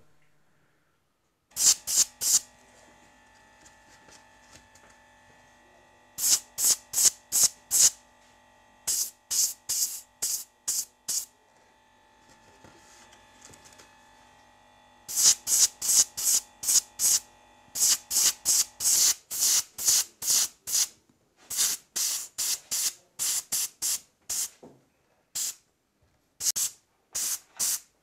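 Airbrush spraying in short, repeated hissing bursts, two or three a second, in groups with brief pauses: paint being dusted onto small model parts. A faint steady hum sits underneath for the first two-thirds.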